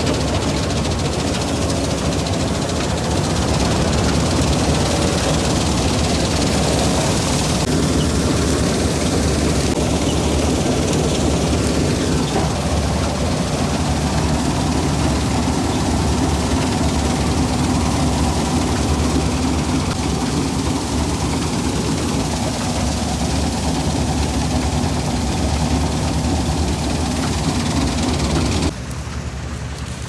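Diesel combine harvester running while cutting wheat, heard from on board: a loud, steady engine and machinery drone. About a second before the end it drops suddenly to a quieter, more distant running of the machine.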